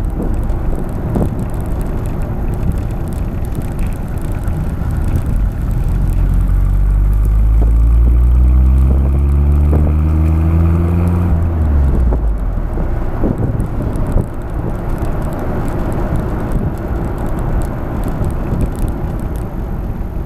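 Honda City Turbo I's turbocharged four-cylinder exhaust, heard from the rear of the moving car: the engine note climbs steadily under acceleration for about six seconds, then drops away suddenly as the throttle is lifted, leaving a low rumble of the car rolling along.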